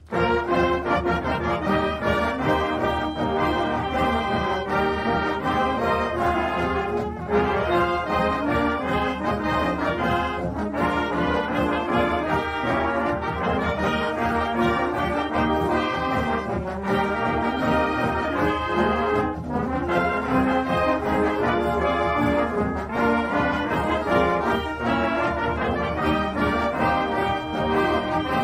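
Brass-led instrumental music, with trombones and trumpets playing a tune in phrases and brief breaks between them.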